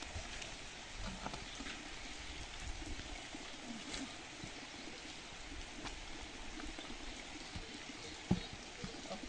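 Light rain falling steadily, with a few faint knocks and one sharper knock near the end as a wooden board is handled and set down over a hole in an earthen roof.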